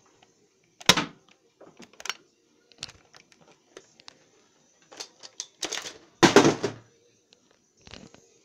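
Handling noise: irregular clicks and knocks of hard plastic being handled, with a loud knock about a second in and a louder, heavier thud around six seconds in.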